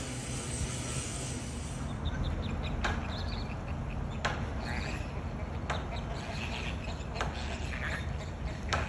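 Birds calling over a steady low rumble of outdoor background noise. A short sharp call repeats about every second and a half, with faint chirps between.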